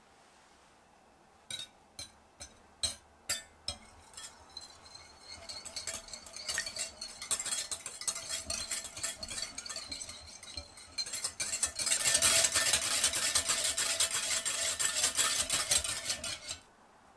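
Wire balloon whisk beating egg and milk in a glass bowl. It starts with a few separate clinks against the glass, then turns into steady, rapid whisking that grows louder and faster and stops suddenly near the end.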